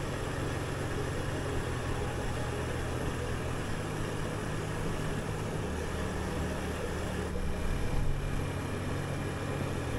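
Small motorbike engine running steadily at cruising speed, heard from the handlebars, with wind and road noise rushing over the microphone. The engine note shifts slightly a few times, and the rush grows briefly louder about eight seconds in.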